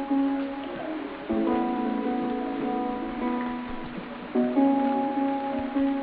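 Background music: sustained plucked-guitar chords, with a new chord struck a little over a second in and again about four seconds in.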